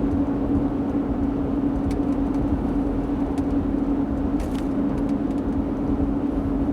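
Steady in-cabin road noise of a truck driving: a constant low rumble from engine and tyres with an even droning hum over it.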